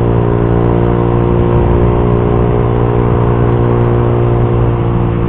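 Suzuki GSX-R150's single-cylinder engine running at steady high revs through an R9 Misano racing exhaust, an even drone that holds one pitch.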